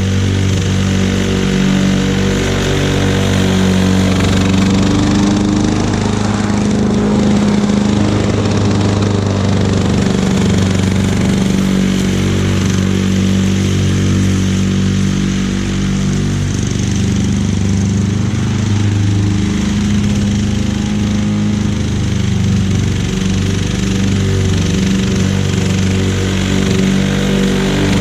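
A 1991 Lawn-Boy M series two-stroke push mower running steadily while mowing, its engine note shifting slightly as it takes on and sheds load.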